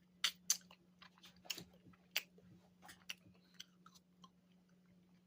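A person chewing and biting a frozen strawberry fruit bar close to the microphone: irregular crunchy bites and wet mouth clicks, sharpest in the first second and thinning out toward the end.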